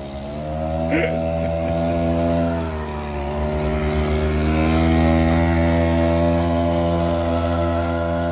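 Small engine of a mini bike (a 'pocket rocket' over 20 years old) running under a rider. It revs up, drops back briefly about three seconds in, then pulls steadily at higher revs. The owner says it is not running great.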